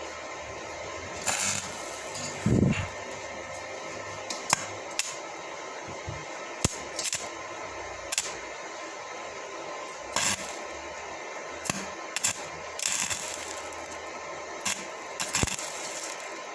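Electric stick-welding arc hissing steadily, broken by irregular sharp pops and crackles.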